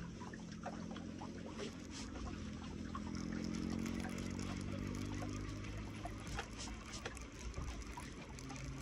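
Small waves lapping and trickling against shoreline rocks, with the soft whir and faint clicks of a baitcasting reel being wound steadily through a lure retrieve.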